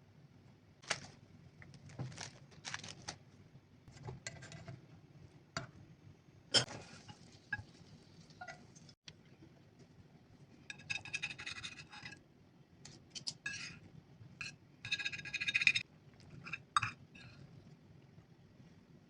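Kitchen utensils clinking and scraping on cookware: a run of short clicks and knocks, with longer scraping stretches about eleven and fifteen seconds in.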